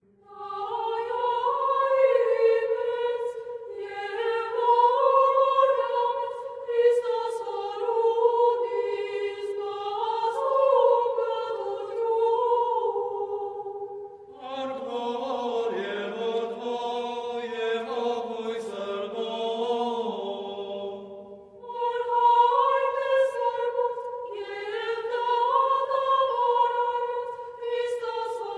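Choral music: voices singing slow, held lines. About halfway through, lower voices join for several seconds.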